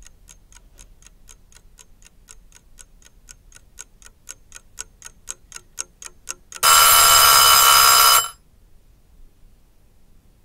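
A clock ticking about three times a second, the ticks growing louder, then a loud bell-like alarm ringing for about a second and a half before cutting off suddenly.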